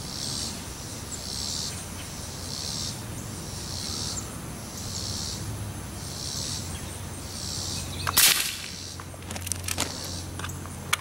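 A pellet gun fires once about eight seconds in, a single sharp crack, followed by a few fainter clicks. Before the shot, a high-pitched call pulses steadily about once a second from the trees.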